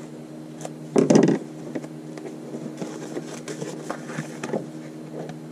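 Scissors snip washi tape and clack down about a second in. Then come light paper rustles and small taps as a journal page is smoothed by hand, over a steady low hum.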